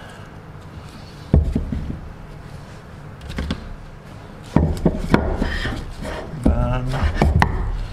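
Hammer blows knocking steel bearing races out of a Honda Civic rear wheel hub, metal-on-metal strikes with a short ring: a single blow just over a second in, then two quick runs of several blows in the second half.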